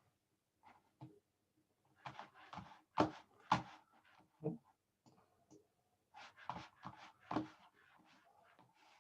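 A series of irregular knocks and rustles, the sharpest about three seconds in, again half a second later, and near the end.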